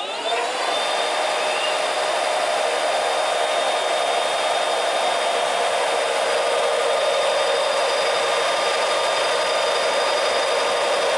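Electric bicycle hub motor on a bench stand, spun up by throttle on an 84 V battery: its whine rises in pitch in the first half second, then holds steady at top speed. A steady electric whine in several tones sits over the rushing of the free-spinning, unloaded wheel.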